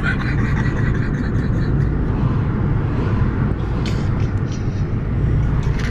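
Steady low rumble inside a car's cabin, from the running car.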